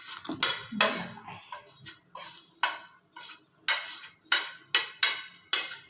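A metal spoon clinking and scraping against a cooking pot in repeated sharp strokes, irregular and roughly two a second, as jaggery is added to a herbal kashaya decoction.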